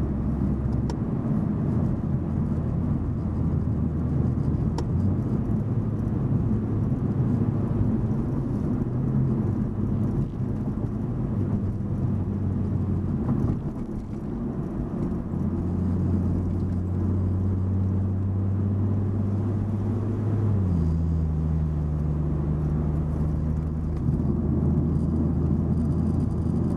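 Car engine and tyre noise heard from inside the cabin while driving, a steady low hum. It eases off briefly about halfway through as the car slows, then the hum comes back and changes pitch a few seconds later.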